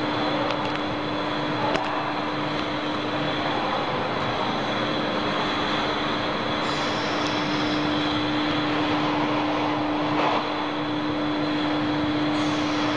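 Steady machinery hum: a constant tone over a broad rush of noise, with a few faint clicks in the first seconds and a short louder rush about ten seconds in.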